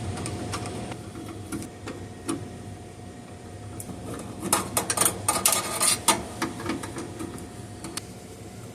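Hand tools working on a furnace gas valve and its piping: scattered metallic clicks and knocks, with a quick run of rapid clicking and clanking about halfway through, over a steady faint tone.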